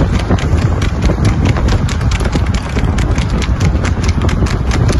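Harness horses pulling sulkies at racing pace, their hooves clattering fast and unevenly on the road, several horses at once. A steady low rumble runs underneath.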